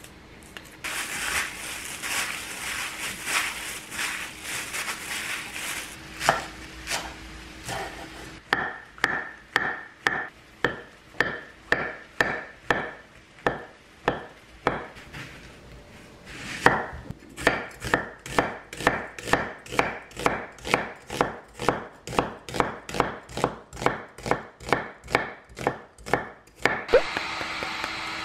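A chef's knife slicing mushrooms on a wooden cutting board: steady, even chops about two a second, with a short pause midway. Before the chopping come a few seconds of rustling, scraping noise, and near the end a brief hiss.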